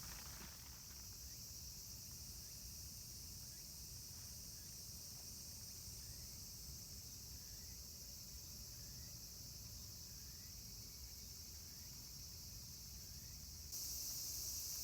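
Insects chirring steadily in a thin, high band, growing louder near the end.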